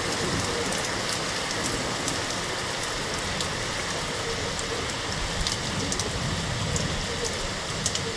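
Steady rain falling during a thunderstorm, with scattered sharp drop hits close to the microphone.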